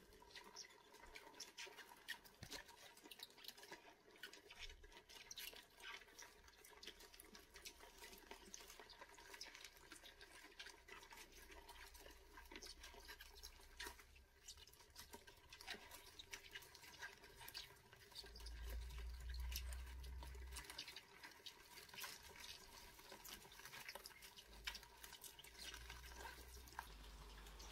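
Near silence: faint room tone with a steady low hum and scattered light clicks and rustles, with a faint low rumble about two-thirds of the way through.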